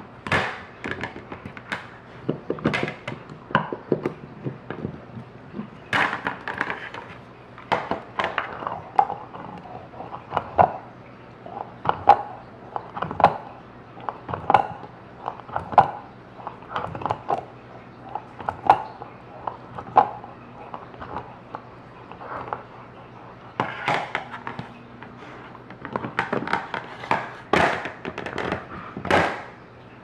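A dog gnawing a hard chew: irregular crunching clicks and knocks as the chew strikes a metal floor tray, some of them ringing briefly.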